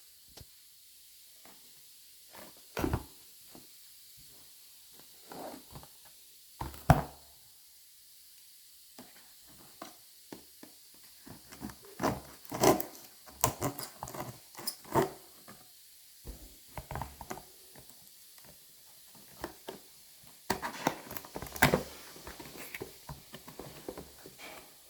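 Handling noises of a Stanley Quick Flip insulated bottle and its packaging: scattered taps, knocks and rubbing, in irregular clusters, the sharpest knock about seven seconds in.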